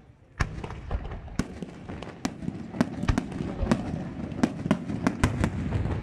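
Fireworks display: after a brief lull, a first sharp bang about half a second in, then a dense, irregular string of a dozen or more sharp bangs and pops over a low rumble.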